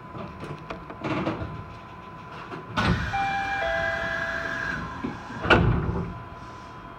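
Suspended monorail car's sliding doors closing at a station stop: a knock, then a short electronic chime of two held notes, the second lower, then the doors shut with a solid thud about five and a half seconds in.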